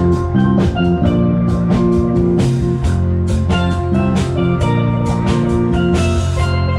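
Live band playing an instrumental passage, with no singing: steel drums carry the melody over a steady drum-kit beat, bass guitar and guitar.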